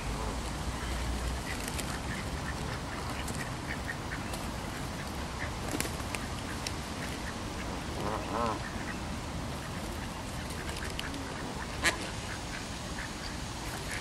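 Ducks quacking over the scuffle of a feeding flock, with a short run of calls about eight seconds in and one sharp click a few seconds before the end.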